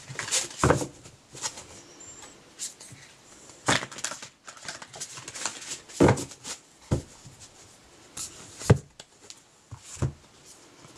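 A deck of oracle cards being shuffled and handled by hand: short taps and flicks at irregular intervals.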